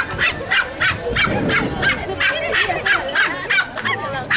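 A dog barking over and over in quick, high-pitched barks, about three a second, with voices murmuring underneath.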